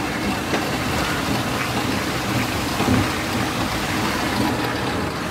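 Steady rushing hiss of water running down a log flume chute and churning into its splash pool.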